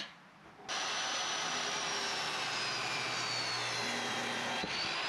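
A short click, then a Chicago Electric 10-inch compound miter saw starts running. Its motor whine falls slowly in pitch as the blade cuts through a 2x6 board.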